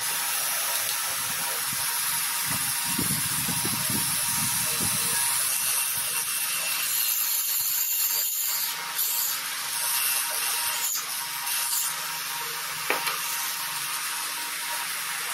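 Small high-speed DC motor spinning a disc on its shaft, a steady high whirring hiss, with a low handling rumble early on and a few sharp clicks later.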